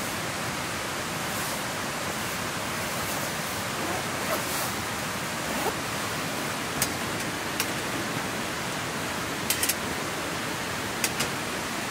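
Steady hiss of rain falling, with a few sharp taps of heavier drops scattered through the second half.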